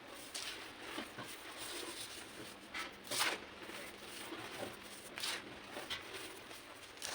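Gym chalk being crushed, giving irregular crunches and crumbles. The loudest crunch comes about three seconds in, and another follows a couple of seconds later.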